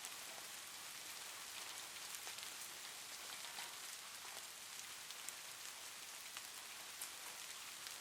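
Steady rain falling, a soft even hiss with scattered individual drop ticks.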